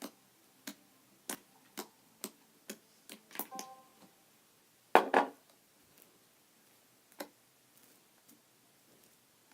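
Slime being squeezed and worked by hand, giving a string of sharp clicking pops about two a second, with a louder double pop about five seconds in.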